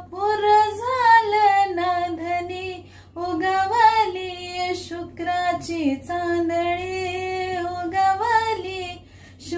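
A woman singing solo and unaccompanied, a Marathi folk melody in long held lines with sliding ornaments, breaking briefly for breath about three seconds in and again near the end.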